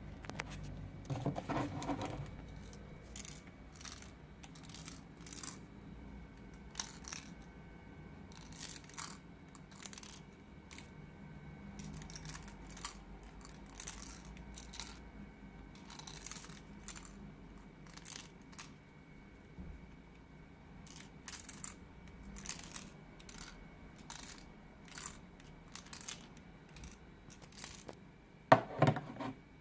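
Microlab T1 Bluetooth headphones rattling as they are moved: irregular short clicks and rattles from a loose part inside, a defect. There are louder handling noises about a second in and near the end.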